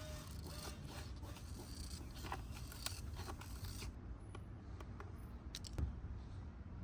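Sheet-metal capped rake trim being cut across with hand snips: faint cutting and scraping with a few short clicks, easing off after about four seconds.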